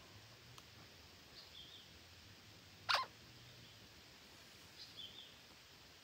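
Parakeet at its nest calling: one brief, loud harsh call about three seconds in, with faint short high chirps about a second and a half in and again near five seconds.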